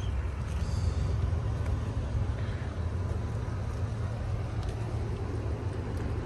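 Twin-turbocharged Ford Mustang 5.0-litre V8 idling steadily at a low, even pitch.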